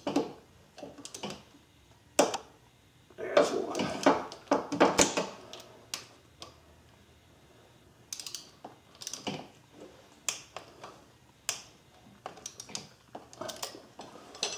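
Metal hand tools clicking and clinking on the crankshaft pulley bolts: a ratchet with a hex bit and a wrench held on the pulley. Irregular clicks, with a denser run of clicking about three to five seconds in.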